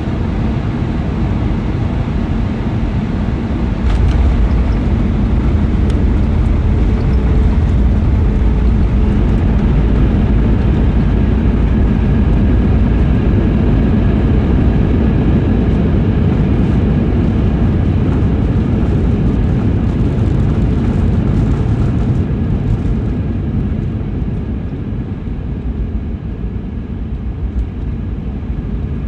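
Airbus A320 heard from inside the cabin during landing: a steady low rumble that turns suddenly louder about four seconds in, as at touchdown, and stays loud before easing off near the end as the jet slows on the runway.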